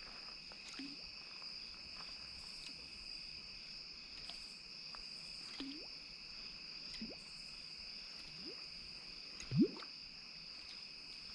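Steady high buzzing chorus of insects in two pitch bands, with a few short upward-sliding chirps scattered through it, the loudest near the end.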